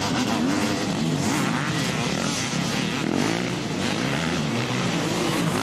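Several motocross dirt bike engines racing on a track, their pitch rising and falling as riders rev, shift and pass, overlapping in a continuous din.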